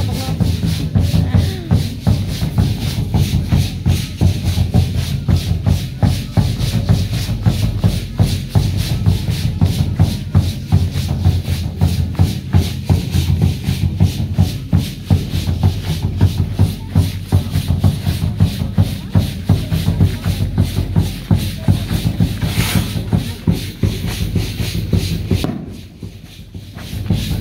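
Folk-dance music in a steady beat, with many hand rattles shaken and dancers' feet stepping in time over a strong low accompaniment. The sound drops away briefly near the end.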